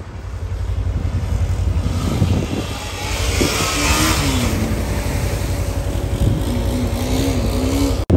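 Dirt bike engine running and revving as the bike wheelies through shallow flood water, its pitch rising and falling twice. A hiss of water spray swells to its loudest about halfway through as the bike passes close by.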